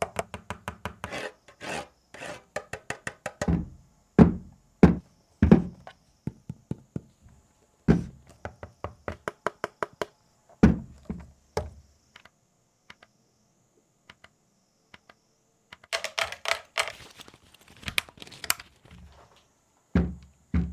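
A long series of separate knocks, taps and clicks, with a scratchy rubbing patch near the end and a quiet stretch before it: handling noise on a hard surface.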